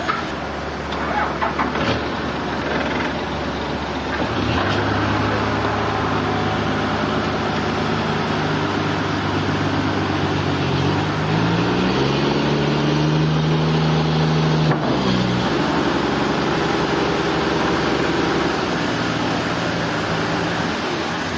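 A heavy machine's engine running steadily, with a few knocks near the start. About halfway through the engine speeds up, holds at the higher pitch for a few seconds, then drops back.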